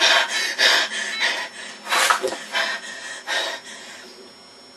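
A boy panting hard in loud gasps, about two a second, growing fainter and dying away near the end.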